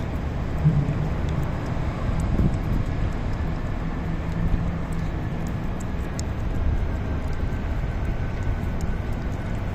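Cat licking a lickable paste treat from a squeezed tube, with small wet clicks, over a steady low rumble.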